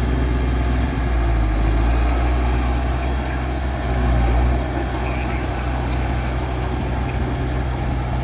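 Diesel engine of a heavy earthmoving machine running steadily with a low, even drone. It is a little louder for a few seconds, then settles slightly lower about four and a half seconds in.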